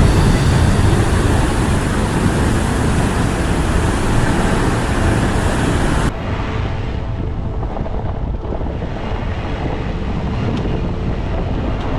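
Steady rumble and hiss of a vehicle driving on a gravel road, with wind noise. About six seconds in, the sound changes abruptly: the high hiss drops away and a duller, quieter rumble continues.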